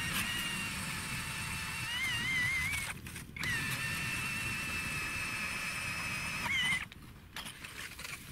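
Powered ice auger drilling a hole in river ice: a steady high motor whine with grinding underneath, its pitch wavering as the load changes. It stops briefly about three seconds in, runs again, then cuts off with about a second and a half left.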